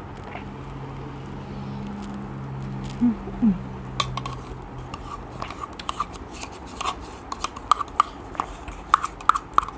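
A wooden spoon scraping and clicking against a small plastic yogurt cup as yogurt is scooped out and eaten. The clicks come in quick irregular runs from about four seconds in and are loudest near the end. A low steady hum fills the first half.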